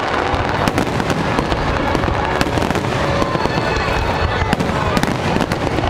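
Fireworks display going off continuously, a dense run of bangs and crackling with no pause.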